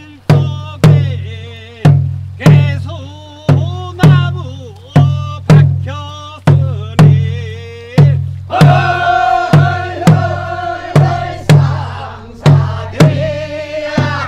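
Korean rice-paddy weeding work song: a lead singer's voice over steady strikes of a buk barrel drum, about two a second, with a group of voices joining in about two-thirds of the way through.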